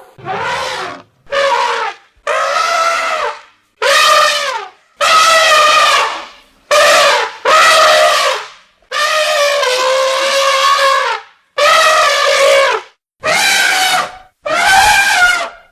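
Elephant trumpeting: about ten separate loud, brassy calls in a row, each lasting from half a second to two seconds, with short pauses between them.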